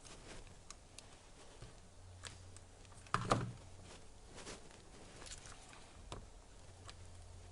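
Faint scattered clicks and handling noises of an e-bike battery pack's parts being worked on by hand, with one louder knock a little over three seconds in.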